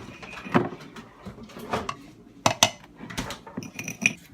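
Kitchenware being handled: a few sharp clinks and knocks, with a brief high ringing near the end.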